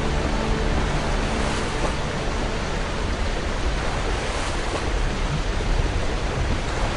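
Steady rush of falling water from a waterfall, an even hiss with no distinct splashes.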